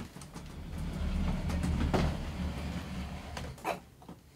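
A low rumbling hum that builds and fades over about three seconds, with a few light clicks.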